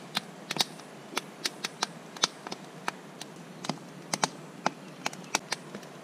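Small, irregular clicks and taps, a few each second, as pieces of fried meat are picked out of a plastic bowl by hand and laid on a pizza base.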